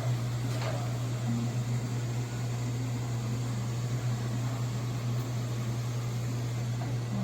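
Robot vacuum cleaner running: a steady motor hum with an even hiss of suction.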